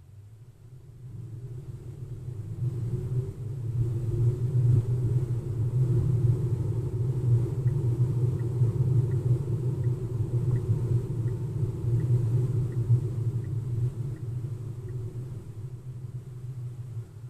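Road and tyre rumble inside the cabin of a Tesla Model 3 as it pulls away and drives on. The rumble builds over the first few seconds, holds steady, and eases off near the end.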